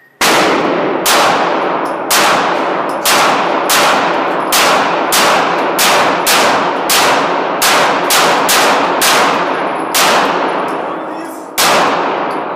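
A 9mm handgun fired about sixteen times in a row at an uneven pace, roughly one shot every half second to a second, with a longer pause before the last shot. Each shot is followed by a brief ringing echo.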